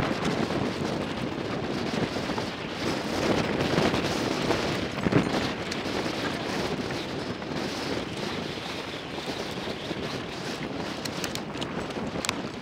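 Wind buffeting the camera microphone, with small clicks and rattles of a plastic tackle box and hook packet being handled.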